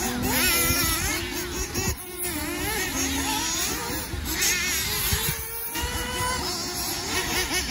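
Several nitro-powered 1/8-scale RC off-road cars racing. Their small two-stroke glow engines rev up and down together in a wavering, high buzz as the cars accelerate and brake around the track.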